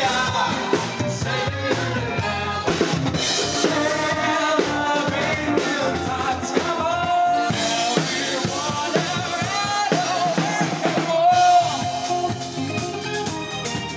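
A band's music: a singer over a drum kit, with a couple of long held sung notes, one near the middle and one a few seconds before the end.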